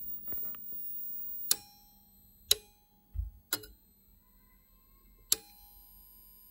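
Four sharp clicks spread over about four seconds from the grid-tied solar inverter's clear-topped power relays switching. After each click, faint steady high whines from the inverter's electronics come on or change.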